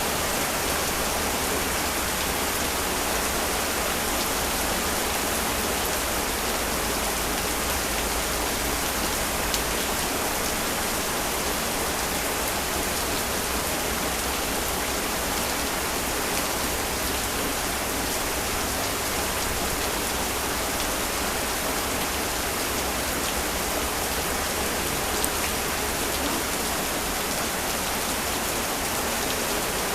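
Heavy rain falling steadily, an even hiss of rain on surfaces, with a couple of single sharp drop ticks.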